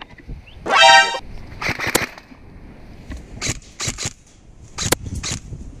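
A short, loud tone of steady pitch like a horn, about a second in. Then a handful of sharp cracks spread over the next few seconds, consistent with airsoft replica shots during a close-quarters exchange.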